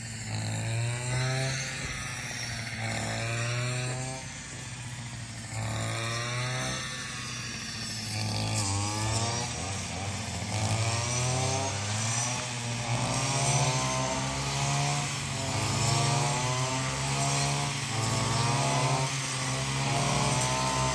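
Small petrol engine running, its speed rising and falling over and over with a steady low hum underneath.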